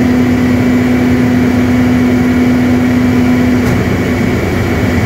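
Baldor 250 kVA generator set running steadily after its start: a loud, even engine hum with a constant tone in it, which weakens a little after about three and a half seconds.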